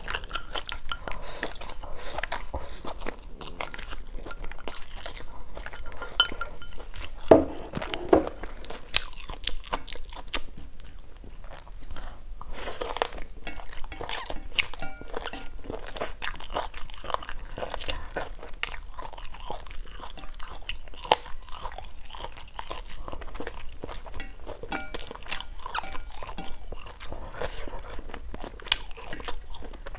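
Close-miked chewing and crunching of food, with frequent small crackles and clicks and one sharper, louder click about seven seconds in.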